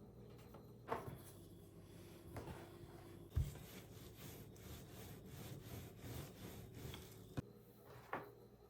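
Household handling sounds: a few sharp knocks, the loudest a dull thump about a third of the way in, and a stretch of rhythmic rubbing strokes in the middle.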